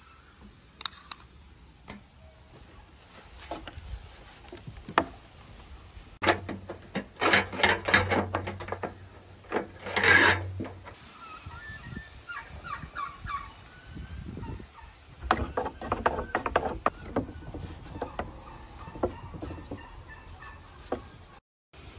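Farmyard fowl calling, in a loud run of calls in the middle and a few short repeated calls after it, over scattered clicks and knocks of hands and utensils at work.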